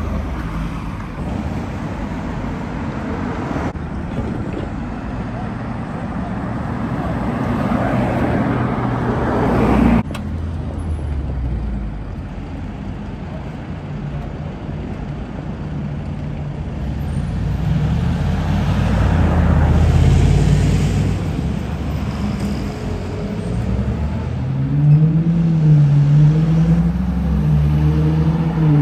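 Cars driving past in city traffic, engines and tyre noise. The sound changes abruptly about ten seconds in. Near the end a car engine revs, its pitch rising and falling several times.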